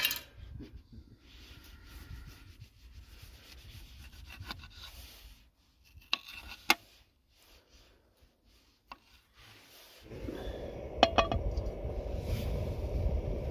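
Opinel folding knife slicing a tomato on a wooden chopping board: faint cutting, with two sharp taps on the board about six seconds in. About ten seconds in, a camp stove burner starts a steady rushing noise under an empty frying pan, with a few metallic knocks from the pan just after.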